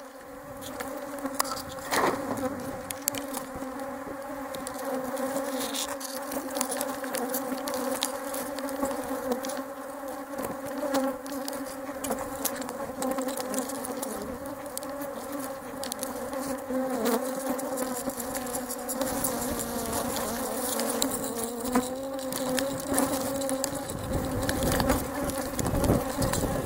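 Swarm of honeybees buzzing around an open hive close to the microphone: a steady, slightly wavering hum, with scattered clicks and rustles from the hive cover sheet being handled. A low rumble comes in near the end.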